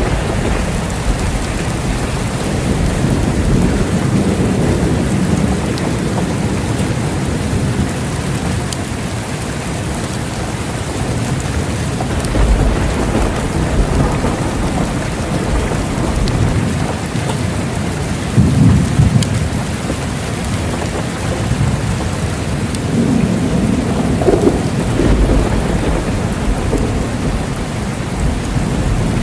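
Steady rain falling, with low rolling thunder that swells up several times in the second half.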